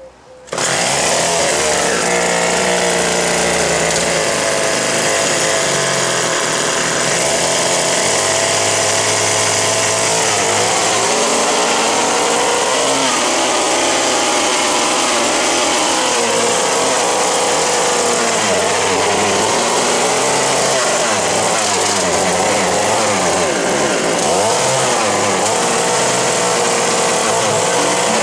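The O&R 1 hp two-stroke engine of a 1958 Little Wonder hedge trimmer runs loud and fast, coming in abruptly about half a second in. Its pitch wavers up and down as the blades work through the hedge.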